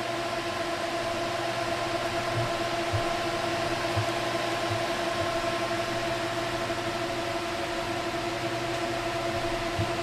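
Four Delta AFB1212SH 120 mm fans running at high speed through a water-cooling radiator: a steady rush of air with a steady whine.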